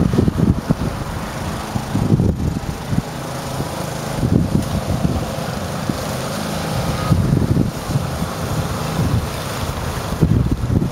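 Wind buffeting the camera microphone, a low rumble that swells and drops every couple of seconds.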